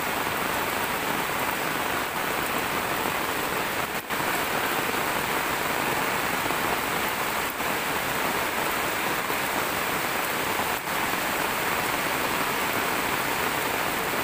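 Heavy rain falling steadily onto flooded ground, a constant, even hiss of rain on water.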